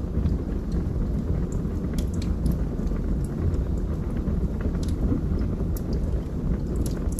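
Wood fire burning in a fireplace: a steady low roar of the flames with scattered sharp crackles and pops from the burning logs.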